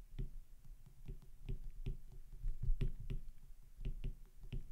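Light, irregular clicks and taps of a stylus on a tablet as words are handwritten, several a second, with soft low thumps from the pen striking the surface.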